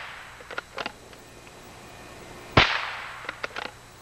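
.22 rifle shot about two and a half seconds in, a sharp crack with a short echoing tail, taken at a squirrel on a log. A few faint clicks come before and after it.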